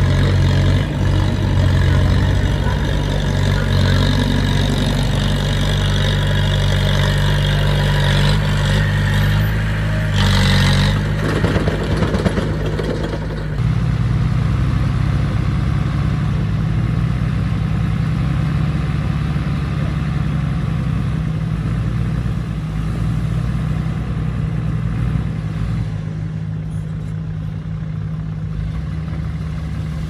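Bulldozer's diesel engine running steadily and loudly, with a brief surge of noise about ten seconds in and a few sharp knocks just after; the engine then runs a little quieter.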